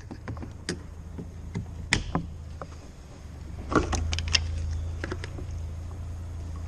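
Scattered clicks, knocks and plastic rattles of hands working on a Ford Fiesta's door mirror wiring and mounting inside the bare door frame. A steady low hum runs underneath and gets louder a little under four seconds in, with a quick cluster of sharper clicks around the same point.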